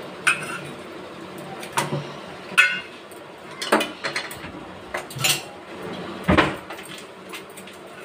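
Stainless-steel kitchen utensils clinking and knocking as a small grinder jar, plates and bowls are handled on a counter: about eight separate clinks, the loudest about six seconds in with a dull thud under it.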